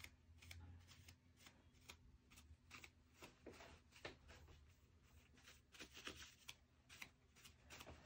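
Faint, irregular scratching and rubbing as crusty, dried-out thermal paste is wiped off a server processor, over a low steady room hum.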